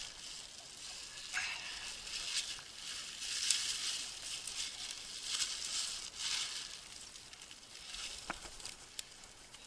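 Netting of a fish trap and a thin plastic bag rustling and crinkling in irregular bursts as live crucian carp are tipped from the trap into the bag, with a couple of sharp ticks near the end.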